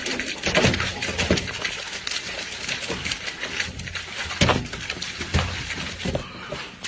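Wet crunching and squelching of a whole watermelon's flesh and rind being bitten into and torn apart by hand, a dense run of crackles and splats.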